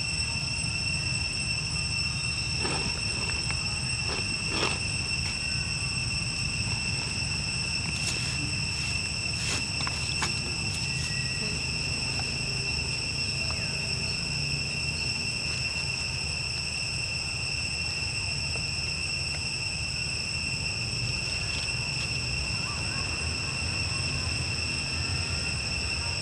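A steady, high-pitched drone of insects, one unchanging whine, over a low outdoor rumble. A few faint clicks or rustles come a few seconds in and again about ten seconds in.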